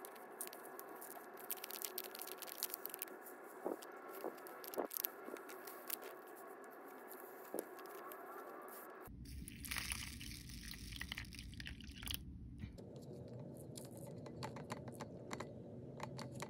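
Clear plastic packet crinkling as white granules are shaken out of it into a plastic dish, with a string of small crackles and ticks. About nine seconds in the background changes abruptly, and more scattered ticks follow as the granules are handled.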